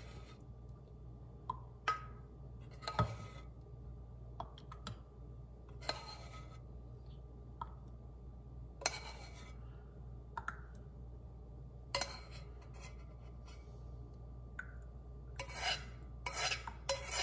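Metal spoon scraping the inside of a stainless-steel saucepan and clinking against small glass jars as thick guava jam is spooned into them: scattered short scrapes and clicks, coming thicker near the end, over a steady low hum.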